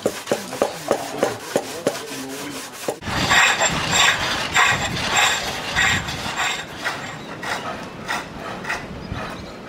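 A hand blade shaving green wood on a chair's back post in quick regular strokes, then, about three seconds in, a pole lathe: a turning tool cutting a spinning wooden spindle in rhythmic strokes, about one every 0.6 s, as the treadle and spring pole drive the work back and forth.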